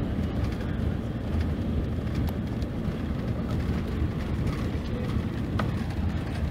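Mercedes-Benz OC-500RF-1842 coach's rear-mounted six-cylinder diesel engine running steadily.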